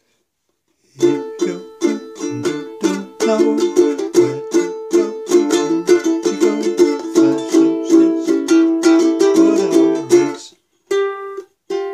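Ukulele strummed in a full strum pattern, down-down-down, down-up-up, up-down-up-down, in a steady rhythm with the chords changing. It starts about a second in, and a couple of single plucked notes ring out near the end.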